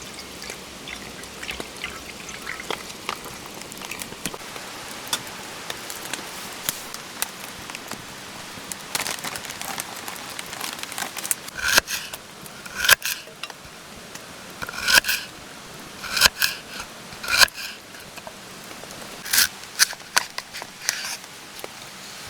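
Light rain falling steadily. About halfway in, a dozen or so short, sharp handling sounds, several in quick pairs, come through it.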